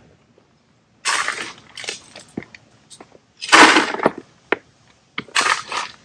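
Handfuls of loose gravel and stones clattering as they are gathered up by hand, three short bursts about two seconds apart.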